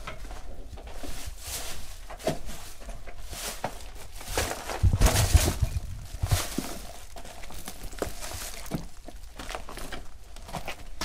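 Footsteps on an attic floor: irregular knocks, scuffs and scrapes as people walk, with a burst of heavier low thumps about five seconds in.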